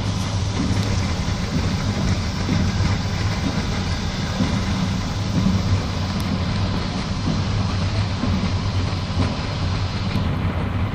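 Passenger train running at speed, heard from inside the carriage: a steady rumble of the wheels on the rails with a low hum, the higher hiss easing off near the end.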